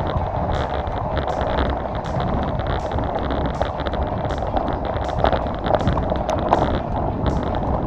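Mountain bike riding over a rough off-road trail: steady wind noise on the microphone with tyre rumble and frequent small irregular clicks and rattles from the bike.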